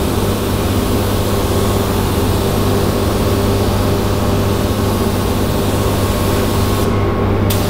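Compressed-air paint spray gun hissing steadily over the low, even hum of a paint booth's ventilation. The hiss drops out for about half a second near the end, then comes back.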